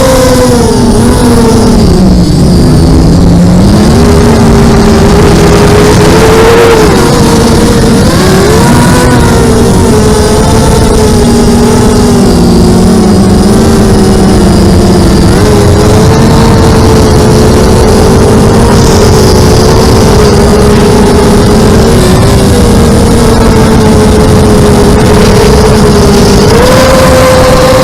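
Electric motors and propellers of an FPV aircraft whining loudly in flight, the pitch rising and falling with the throttle and stepping up near the end, over rushing air noise.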